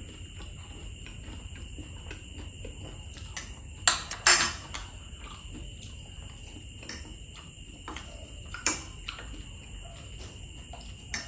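Eating at a table: small clicks of a fork and bamboo skewers on plates, with a few sharper clinks, two close together about four seconds in and one near nine seconds.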